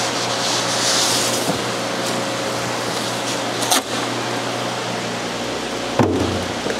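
Steady mechanical hum and hiss of running equipment in a fish room, with two sharp knocks as polystyrene shipping boxes are handled, one just past halfway and one near the end.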